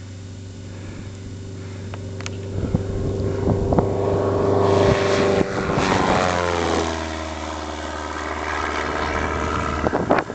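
A high-wing Cessna light aircraft's piston engine and propeller on a low fly-by. The drone grows louder, peaks as the plane passes about five to six seconds in, then drops in pitch as it moves away. A few sharp knocks come near the end.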